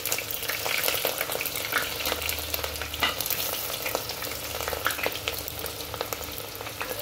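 Chopped onion and whole spices sizzling in hot mustard oil in an aluminium pot: a steady hiss of frying, dotted with many small crackling pops.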